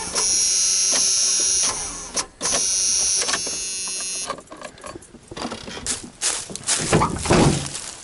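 The van's starter solenoid chatters in a rapid, steady buzz as the key is turned to start, broken twice by short gaps, because the battery is too flat to crank the engine. The buzz stops about four seconds in, giving way to handling knocks and a dull thump near the end.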